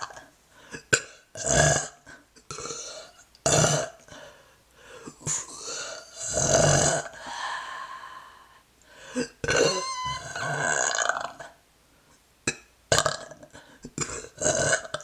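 A person belching repeatedly close to the microphone: a series of separate burps of varying length with short gaps and a few sharp clicks between them, the longest about six seconds in and another running for well over a second around ten seconds in.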